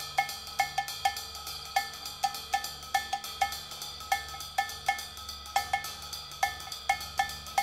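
Percussive background music: a repeating groove of short, ringing pitched strikes, about three a second, over a steady low bass line.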